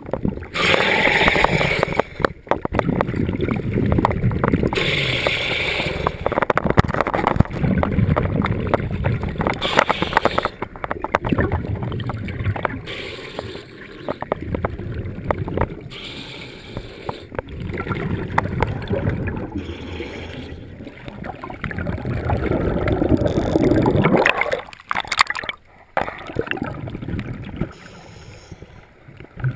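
Muffled underwater noise picked up through a camera housing: water rumbling against the housing, with surges of bubbling hiss every few seconds from a diver's exhaled bubbles.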